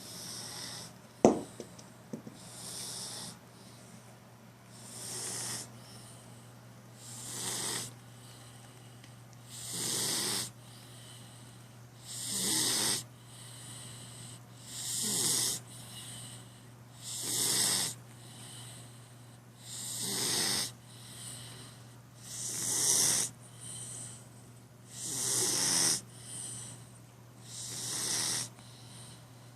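A cat snoring in slow, regular breaths, one breathy snore about every two and a half seconds. A single sharp click about a second in.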